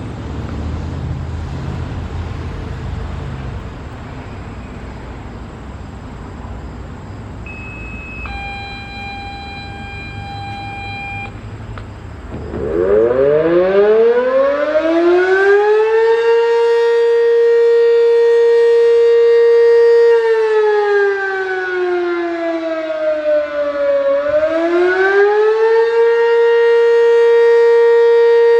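Two-tone paging activation tones over a scanner radio, a short high tone then a longer lower one, set off the siren. About four seconds later a Sentry M-10 dual-tone chopper siren winds up from a low growl to a steady very loud wail, sags in pitch and rises back: the start of its attack signal. A low rumble lies under the first part.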